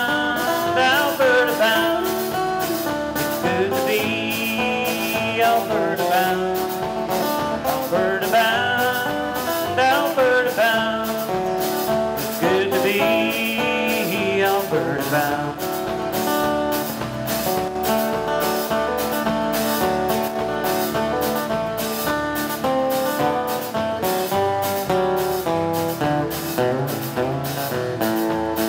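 Country-style band music with a steady beat, guitar and a lead melody line.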